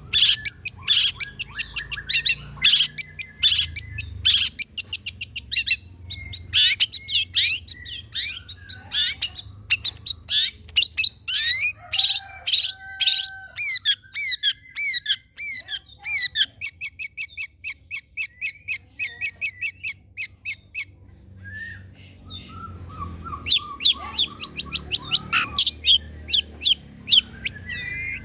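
Long-tailed shrike (cendet) song: a fast, varied chatter of sharp, high chirps and squawks, with a run of rapid, evenly repeated notes for a few seconds past the middle. This is a lure track that bird keepers play to set caged shrikes singing.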